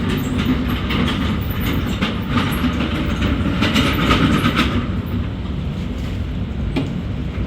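Workshop machinery running with a steady low rumble and irregular metallic clatter.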